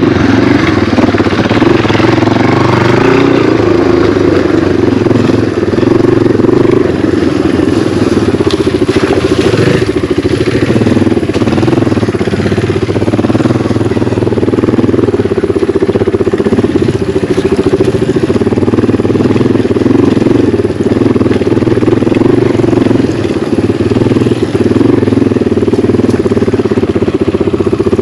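Yamaha TW200 dual-sport motorcycle's single-cylinder four-stroke engine running at a steady pace while riding.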